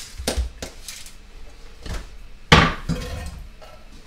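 A few sharp knocks and clinks from a can and a glass dish of olives being handled on a wooden cutting board. The loudest knock comes about two and a half seconds in.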